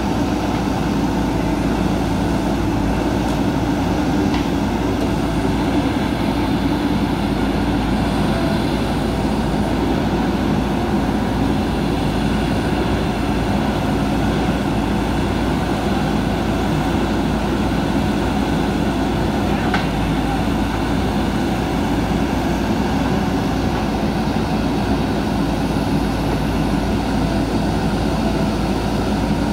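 JCB 3DX backhoe loader's diesel engine running steadily at working speed.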